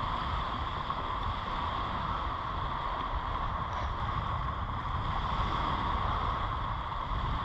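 Steady wind buffeting the microphone, with a hiss of surf from the beach behind it.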